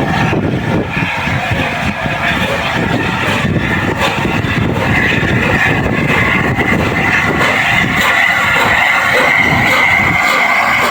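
Locomotives running loud, a rough continuous rumble. From about halfway through, a steady high tone grows over it.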